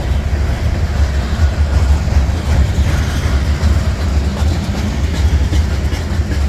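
Norfolk Southern freight train rolling past: a steady, heavy low rumble of the cars with wheels clacking over the rail joints.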